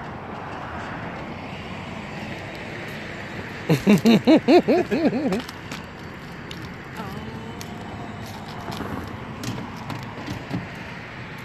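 Cordless drill run in a quick series of about seven short trigger bursts, its motor whirring up and down in pitch with each pull, about four seconds in. Light clicks and rattles follow near the end.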